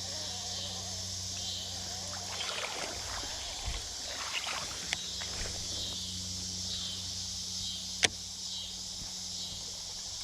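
Creek water sloshing and splashing around a wader's legs, over a steady high outdoor hiss, with one sharp click about eight seconds in.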